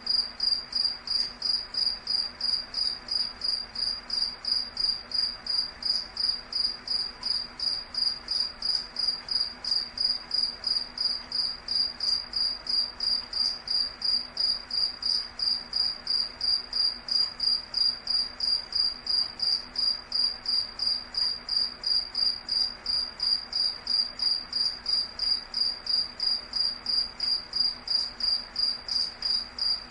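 Insect chirping: a high, even-pitched chirp repeated steadily about three times a second, over a faint steady hiss.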